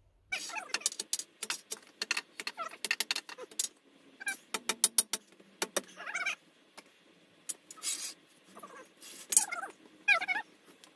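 Sharp, irregular metallic taps of a hammer striking steel tubing, mixed with several short wavering high-pitched squeals.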